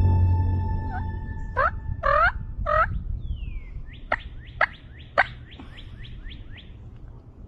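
A bird singing outdoors: a few loud down-swooping calls, then a quick run of about ten down-slurred whistled notes, about three a second. Over the first few seconds, held music tones fade out underneath.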